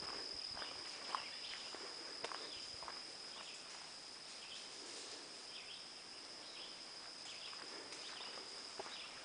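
Footsteps crunching on a dirt forest trail, irregular soft steps, over a steady high-pitched drone of insects.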